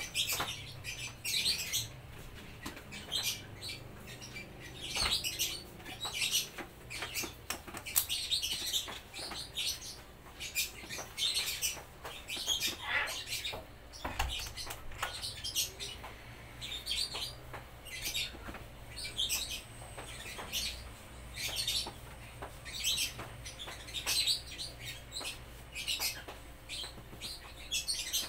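Small birds chirping in short, high-pitched bursts that recur every second or two, over a faint low steady hum.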